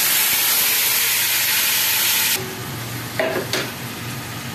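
Hot oil sizzling loudly as tomato paste and ground spices go into the frying onions in an aluminium pot, dropping off sharply after about two and a half seconds to a quieter sizzle. A couple of short clinks of the spoon follow about a second later.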